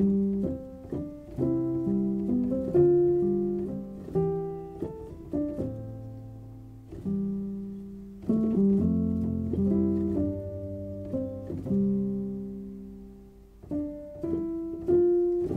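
Background music: gentle solo piano, single notes and chords struck and left to ring and fade, in short phrases with brief lulls between.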